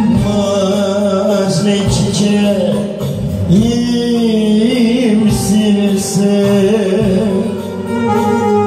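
Live music played on an electronic keyboard, with a voice singing a long, wavering melody line.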